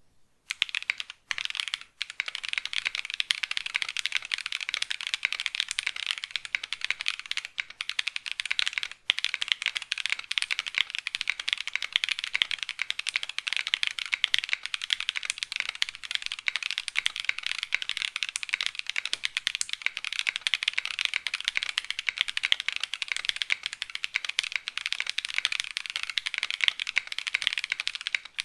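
Fast, steady typing on a mechanical keyboard fitted with KinetikLabs Salmon tactile switches that have been hand-lubed, with brief pauses near the start and about nine seconds in.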